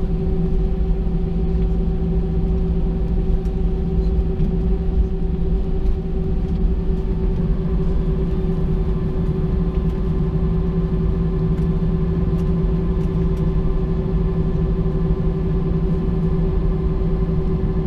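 Cabin noise of an Airbus A320-214 rolling on the ground after landing: a steady low rumble with an even hum of several held tones from its CFM56 engines at idle.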